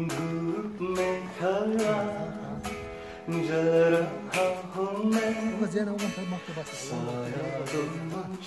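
Background music: plucked acoustic guitar with a man singing.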